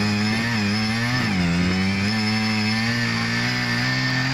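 Two-man petrol earth auger's small engine running under load as the bit bores into the soil. Its pitch wavers and sags about a second in, then recovers as the auger digs on.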